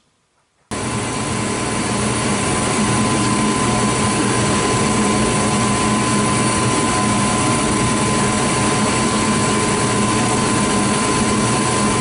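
Gas furnace running with its burners lit: a steady rushing burner-and-fan noise with a steady whine and a low hum, cutting in abruptly under a second in. The flames are staying on after the flame sensor was cleaned.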